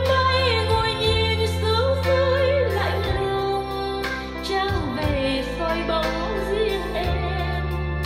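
A song played back through a pair of JBL L100 Century loudspeakers: a sung vocal line with vibrato over held bass notes that change every second or two.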